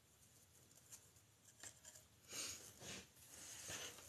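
Deco mesh and ribbon rustling and crinkling as a wreath is handled, faint at first, with a few louder rustles in the second half.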